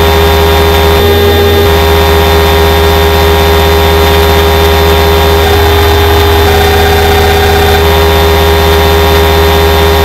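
Procedurally synthesized helicopter sound for an SW-4 helicopter simulator: rotor loading noise as a steady low hum with a fast even pulsing, mixed with steady high tones from a modelled turboshaft compressor and gearbox. The mix of tones shifts briefly about a second in and again around five to eight seconds in as the rotor parameters are changed.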